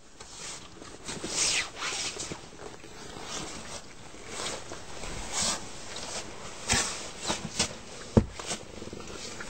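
Snow shovel digging and scraping packed snow off front steps in irregular strokes, with a sharp knock about eight seconds in.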